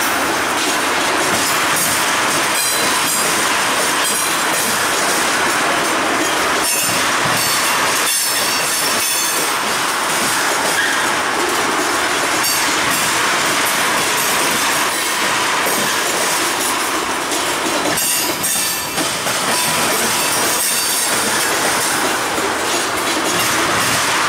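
Freight train of loaded tank cars rolling past close by: steady steel wheel-on-rail noise with clicks of the wheels over rail joints, and brief high squeals from the wheels a couple of times.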